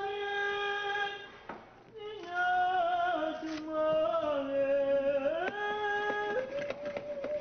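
A voice singing long, high held notes, stepping and sliding between pitches.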